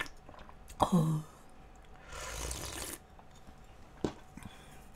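A person drinking soup straight from a bowl. About a second in comes a short vocal 'ahh' that falls in pitch, then a breathy rush of air around the middle, with a couple of light clicks of the bowl and utensils.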